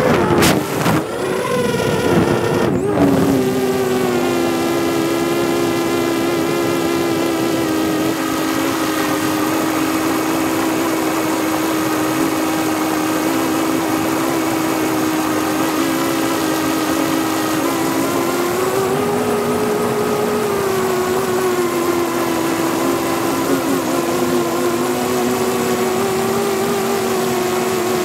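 Quadcopter drone's electric motors and propellers whining: a steady multi-tone hum that wavers unevenly in the first few seconds, then holds steady, its pitch rising for a couple of seconds about two-thirds of the way through.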